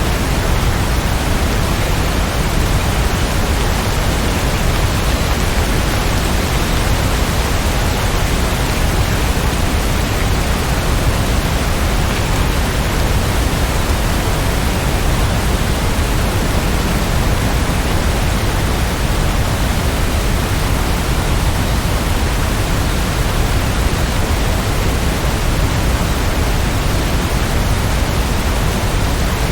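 Rain falling in a steady, even hiss, with no thunder.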